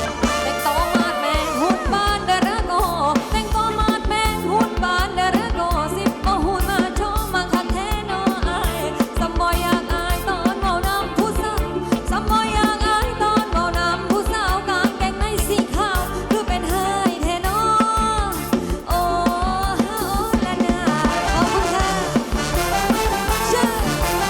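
Thai ramwong dance music played by a live band through a PA system: a steady rhythmic beat under a wavering melody line.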